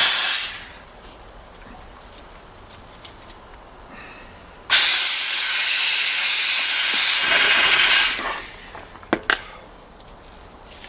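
Steam cleaner jet hissing in two blasts: a brief one at the start and a longer one of about three seconds in the middle. It is blowing grit, rust and oily water out of the works of a Bernina/Oliva CL46 sewing machine. Two sharp clicks follow near the end.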